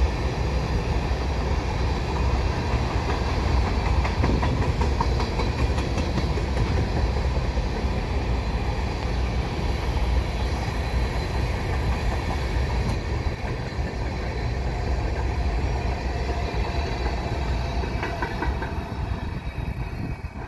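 Covered hopper cars of a potash freight train rolling past on the rails: steady noise of steel wheels on track that fades a little near the end as the last car goes by.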